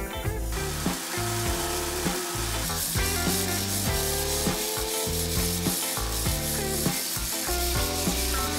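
Steel from an old saw blade ground on a belt grinder to put a double bevel on it: a steady rasping hiss that starts about half a second in, over background music.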